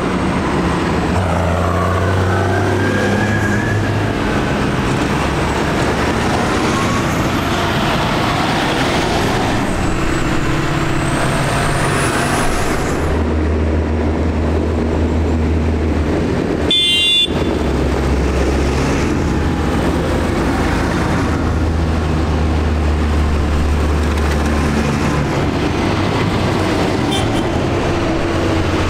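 Diesel engines of large farm tractors driving past one after another, the engine note shifting as each one goes by. About two-thirds of the way through comes one short horn toot.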